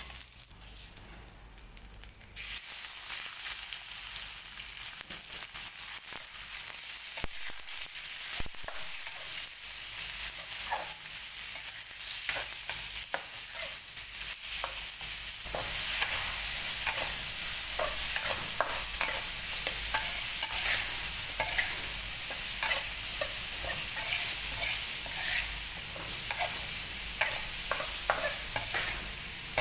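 Pork belly pieces sizzling in oil in a steel wok while a metal spatula scrapes and clinks against the pan in a stir-fry. The frying is quiet at first, over garlic and spring onion, then gets loud a couple of seconds in and louder again about halfway through.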